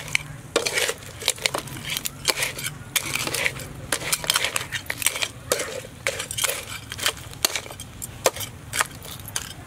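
Metal spatula and ladle scraping and clanking against a steel wok as crabs are stir-fried, the crab shells rattling against the pan in an irregular run of sharp clinks.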